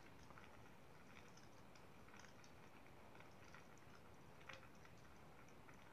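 Near silence: faint room tone with a few scattered small ticks, one a little louder about four and a half seconds in.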